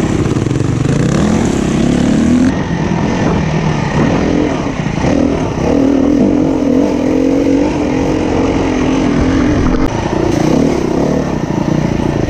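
SWM 300 RS enduro motorcycle's single-cylinder engine running under load off-road. Its pitch climbs, drops about two and a half seconds in, then rises and falls with the throttle.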